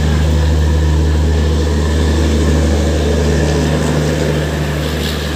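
Passenger train moving past a station platform, a steady low drone of the coaches and power car rolling by.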